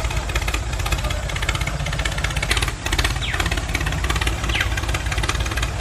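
Steady, rapid chugging engine-like running sound for the mini toy tractor, with two brief high squeaks a little after three seconds and around four and a half seconds in.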